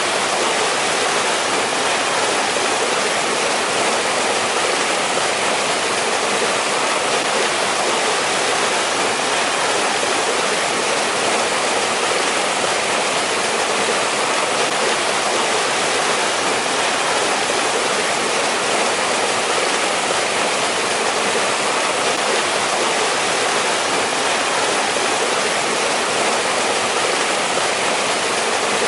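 Mountain stream rushing over rocks, a steady even rush of water with no let-up.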